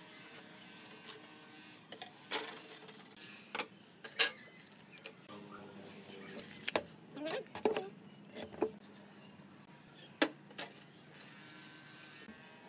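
Measuring tools and a pine board handled on a wooden workbench: scattered sharp taps and knocks as a steel ruler, tape measure and pencil are set down and moved, the loudest about four seconds in.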